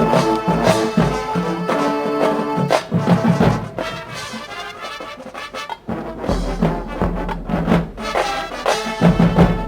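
Marching band playing: brass sounding held chords over drum strikes, dropping softer for a couple of seconds midway, then building back up with heavier drum hits near the end.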